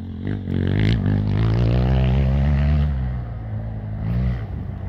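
Dirt bike engine revving as the bike passes close by and pulls away up the trail, its sound wavering in pitch and fading out about three seconds in.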